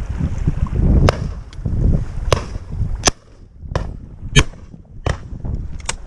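A run of shotgun shots, about seven in five seconds, the loudest about four and a half seconds in, with wind buffeting the microphone throughout.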